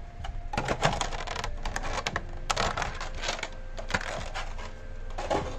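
Small hard plastic figure parts handled and clicked together, with rustling, in a run of irregular clicks and scrapes.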